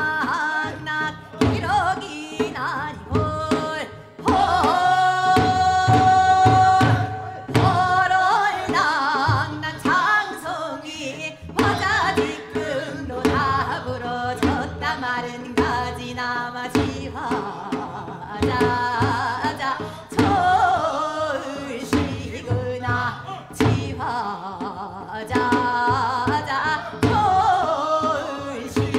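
A woman singing Seodo sori, the Korean western-provinces folk song style, solo with a wavering voice over a steady drum accompaniment, holding one long note about four seconds in.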